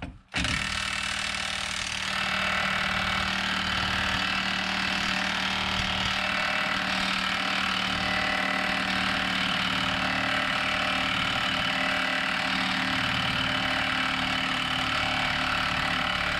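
Bosch cordless impact wrench hammering continuously on a very tight front-suspension nut, trying to rattle it loose.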